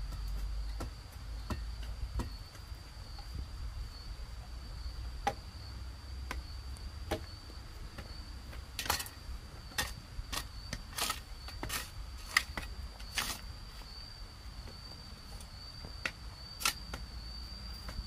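Hand hoes chopping and scraping dry, stony soil in irregular strokes, under a steady high insect drone.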